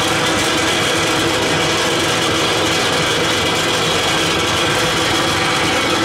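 Biomass gasifier burner firing a large open flame from its outlet pipe: a loud, steady rush with a constant hum, no change in level.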